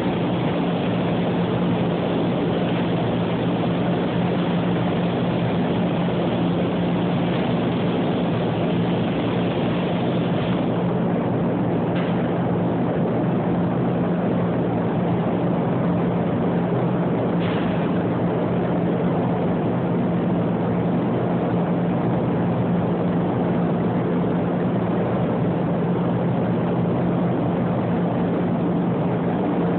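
Paint spray booth's ventilation fans running with a steady hum, overlaid by a spray gun's air hiss that stops about a third of the way in, followed later by two short hisses.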